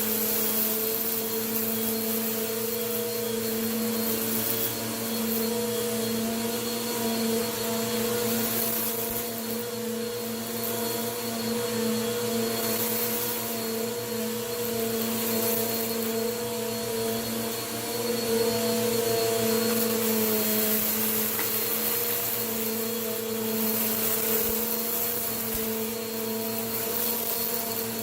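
Vacuum cleaner running steadily while sucking up crunchy dirt, its motor hum constant and the hiss of air and grit swelling and fading every few seconds as it is pushed over the dirt.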